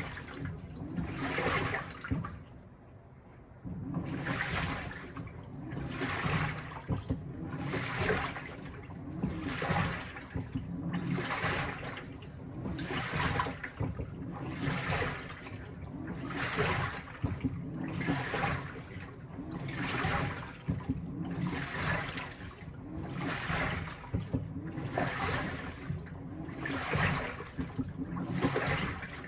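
Panasonic top-loading washing machine agitating a wash load: the pulsator swishes water and laundry back and forth about once every two seconds over a low motor hum, with a brief pause about two seconds in.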